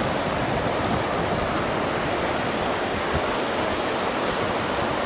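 River rapids rushing over rock slabs: a steady, even noise of running water.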